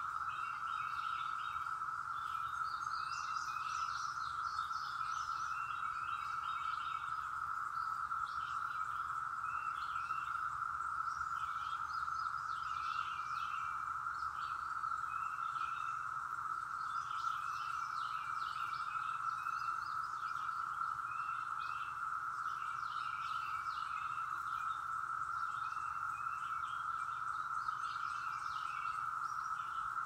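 Chorus of Brood X periodical cicadas (Magicicada), the males' mating call, holding one steady drone. Birds chirp over it on and off throughout.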